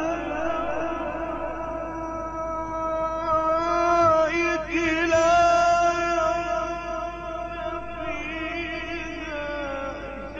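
A male Quran reciter chanting in the melodic mujawwad style, holding one long note with a slight waver and a quick run of ornamental turns about halfway through.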